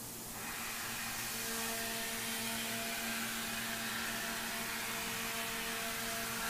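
Thermwood five-axis CNC router running, its spindle and carbide cutter machining a polyethylene part. It makes a steady hiss over several steady hums and whines; it grows louder about half a second in, and another whine joins a second later.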